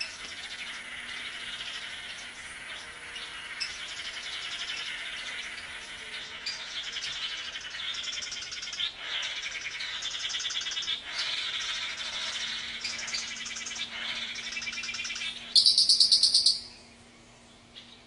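Male Chiroxiphia manakins calling during their cooperative display: a dense run of fast, buzzy, trilling calls that grows fuller toward the middle. About 15.5 seconds in comes one much louder rapid buzzing call lasting about a second, the loudest sound here.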